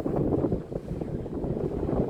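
Low, rumbling wind noise buffeting the microphone.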